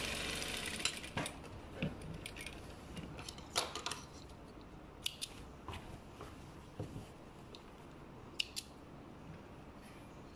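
A sewing machine's run dies away in the first second. After that come quiet fabric handling and a few sharp clicks and snips as thread snips trim the threads at the needle.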